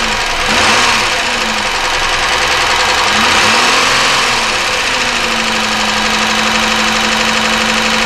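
The 3100 V6 of a 1999 Chevy Malibu running with an internal engine noise that doesn't sound good. The owner does not take it for rod knock and has yet to tell whether it comes from the bottom end or the top end (valves, lifters).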